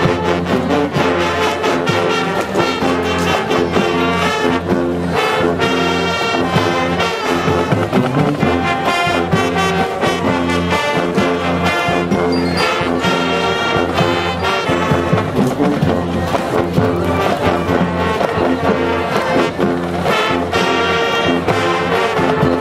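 High school marching band playing at full volume: brass horns, trombones and trumpets, carrying the tune over a steady drum beat.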